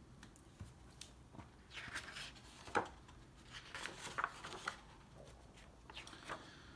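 Pages of a hardcover comic omnibus being opened and turned by hand: a few soft paper rustles and flicks with light handling taps.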